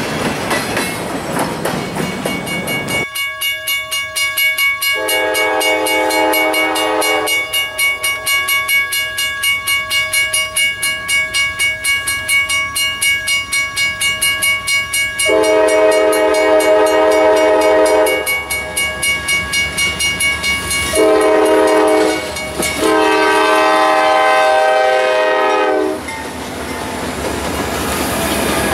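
A freight locomotive's multi-chime air horn sounds long, long, short, long, the grade-crossing signal, over a crossing bell ringing steadily. Near the end the hopper cars' wheels clatter over the rail joints as the train passes.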